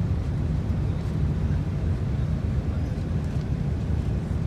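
Steady low rumble of an airliner cabin in flight, the engine and airflow noise heard from inside the plane during its descent.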